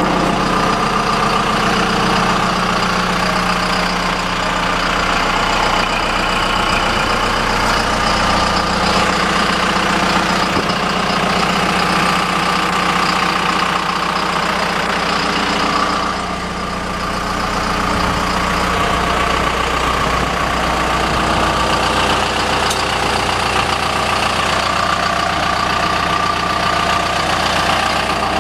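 John Deere 160D LC excavator's diesel engine running steadily, heard close to the machine, with a brief dip in loudness about halfway through.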